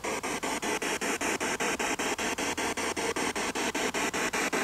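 Ghost-hunting spirit box sweeping through radio stations: a steady static hiss chopped into short pulses about six or seven times a second.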